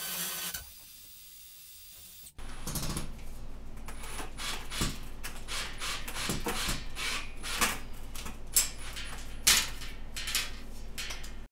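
A cordless drill boring into a concrete-block wall runs briefly and stops about half a second in. After a short pause, irregular clicks and scrapes follow as screws are driven by hand through a steel mounting plate into the wall.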